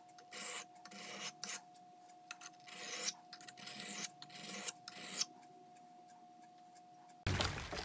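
Steel ulu blade, cut from an old saw blade, being drawn across a diamond sharpening stone: about a dozen short, irregular scraping strokes during final edge sharpening. The strokes stop about five seconds in, and a sudden louder noise begins just before the end.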